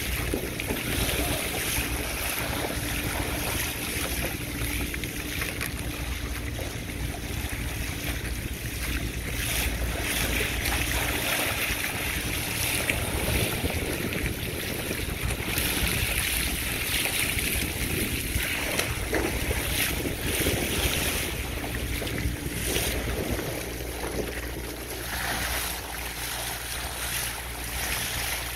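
Bow wave of a sailing trimaran rushing and splashing under the bow, with wind buffeting the microphone as a low rumble that swells and eases.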